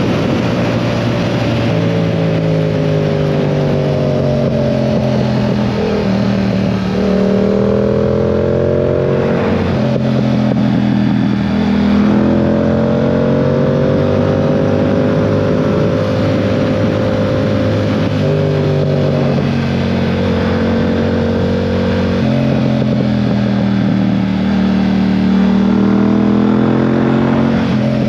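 2022 Yamaha R7's 689 cc parallel-twin engine under way, its revs climbing and dropping several times with sudden jumps in pitch as it changes gear through the bends. A steady wind rush runs underneath.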